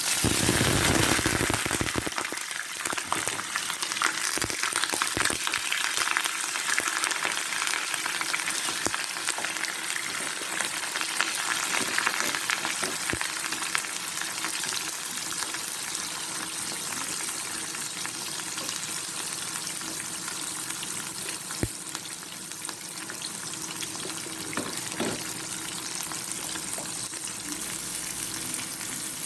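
Sauce ingredients frying in a hot pan: a loud burst of sizzling as they go in, settling into a steady sizzle with occasional sharp clicks.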